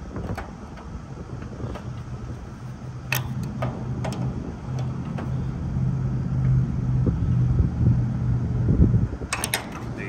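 Crescent wrenches clicking against a brass service tee and fan cycle switch as the tee is tightened onto a liquid-line service port: a few sharp metal clicks about three to four seconds in and a quick cluster near the end. Under them runs a steady low hum that grows louder in the second half.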